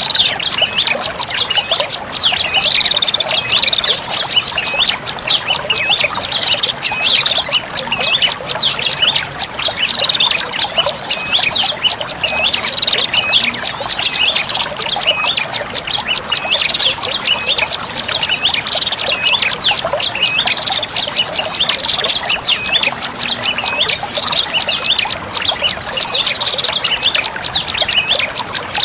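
Prenjak lumut birds calling: a dense, continuous chatter of rapid high chirps, used as a lure call to attract the species.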